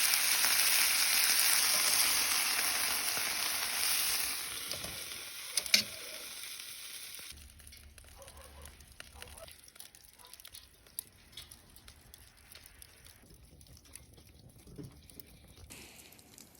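Steak sizzling in an iron frying pan, loud for the first few seconds and then fading, with a sharp metallic clink about six seconds in. After about seven seconds the sizzle drops away abruptly, leaving only faint scattered ticks.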